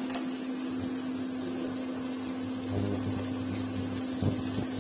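Induction cooktop running with a steady electrical hum while a pan of vegetables cooks on it.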